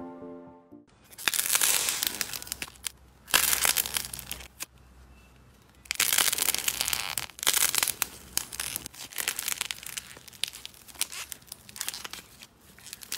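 Hands squeezing and breaking apart dried, cracked modelling clay: crisp crackling and tearing in irregular bursts, with a short quiet gap about five seconds in. The end of a short musical jingle is heard in the first second.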